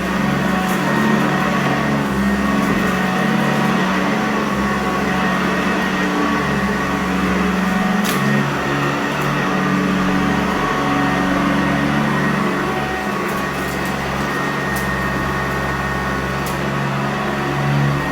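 Sanitaire upright vacuum cleaner running steadily with its motor and brush roll on carpet, a hum under a steady rush, with a few brief ticks.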